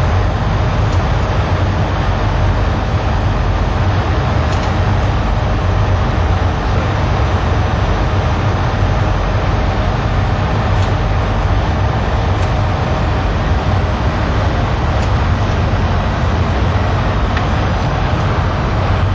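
Steady, loud rumble of a Boeing 737 in motion: engine and airflow noise heard through the passenger cabin, with no change in pitch or level.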